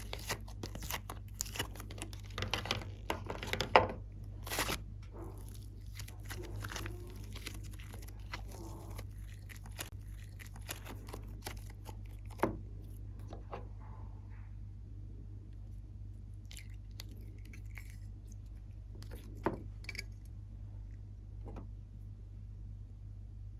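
Glossy slime being squished and stretched by hand, making sticky crackling and popping: dense for the first five seconds, then only a few scattered pops over a steady low hum.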